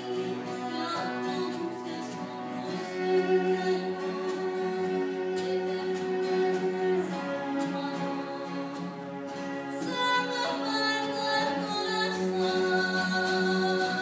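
Live music from a small acoustic ensemble: singing with instrumental accompaniment, in long held notes.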